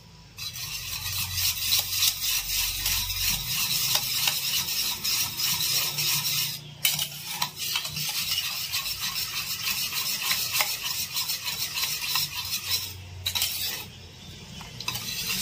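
Wire whisk beating a raw-egg and spice batter in a steel bowl: a fast, steady run of clicking and scraping as the wires knock the metal, stopping briefly twice, about two thirds of the way in and again near the end.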